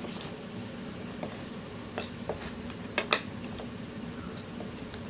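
Metal spoon clinking and scraping against a bowl while stirring chopped mango with chilli powder and oil for pickle. The clicks come irregularly, with a louder pair about three seconds in.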